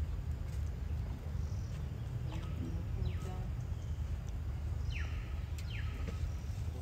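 Four short, high animal calls in two pairs, each sweeping down in pitch and ending on a brief level note, over a steady low rumble.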